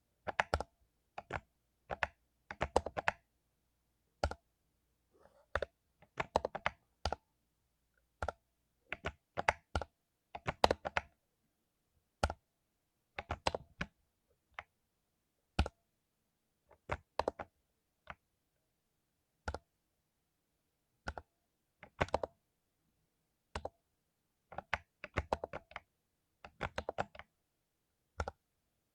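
Typing on a mechanical keyboard with lubed Cherry MX Silver linear switches: quick flurries of keystrokes broken by pauses of a second or so, with a few single key presses between them.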